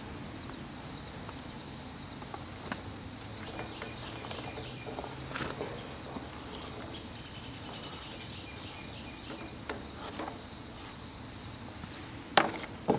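Outdoor background of high bird chirps and insects, with a few light clicks and taps as chopped apple is scraped off a plastic cutting board into a metal saucepan, and a sharper knock near the end.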